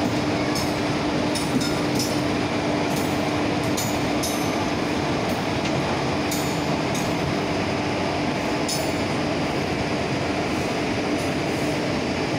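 Passenger coaches of a departing express train rolling past at low speed. The rumble is steady, with a steady hum and irregular sharp clicks and clinks from the wheels over rail joints.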